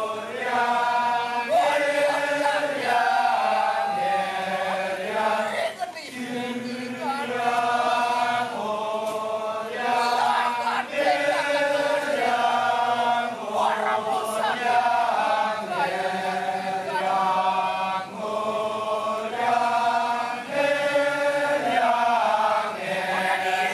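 Kecak chorus of men chanting together in long held notes that step up and down in pitch.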